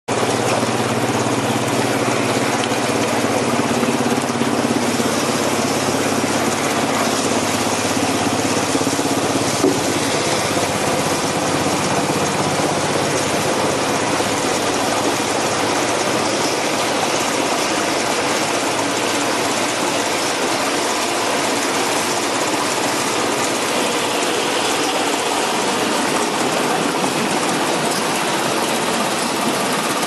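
WL-24 vortex air-bubble vegetable washing machine running: the steady hum of its motors under the churning, bubbling water in its wash tank.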